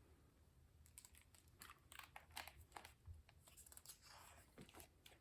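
Near silence with faint, scattered clicks and a brief soft rustle about four seconds in, from handling the picture book's pages.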